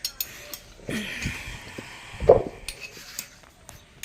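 Metal tools and engine parts clinking and knocking as a motorcycle engine is taken apart, with one louder knock a little over two seconds in.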